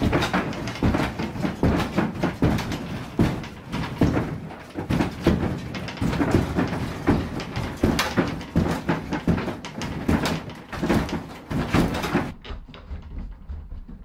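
Irregular footsteps and knocks on old wooden floorboards, several a second, with bumps and rustles. Near the end the sound turns thinner and quieter.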